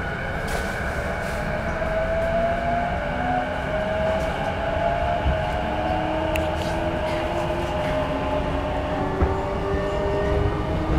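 E233 series 6000 subseries electric train accelerating away from a station, heard inside the car: the inverter and traction motors give a whine of several tones that rise steadily in pitch, over a constant rumble of wheels on rail.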